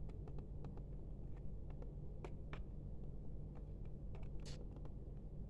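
Small plastic clicks and taps as fingers work at the underside of an Acer wireless keyboard, the two loudest a little over two seconds in, with a brief scrape about four and a half seconds in.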